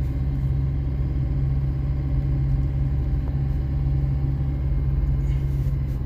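A car driving steadily along a road: a constant low rumble of engine and road noise.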